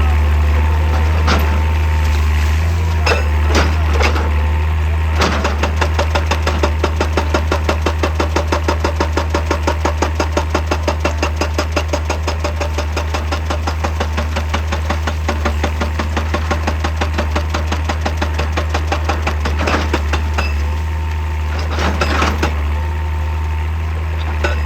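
Excavator's diesel engine running steadily as a hydraulic breaker hammers rock in a rapid, even rhythm from about five seconds in for roughly fifteen seconds. Scattered single knocks of steel on rock come before and after the hammering.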